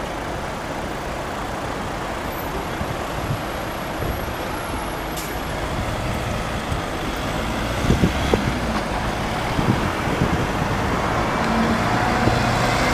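Double-decker bus approaching and driving past, its engine drone growing louder over the last few seconds, over steady street traffic noise.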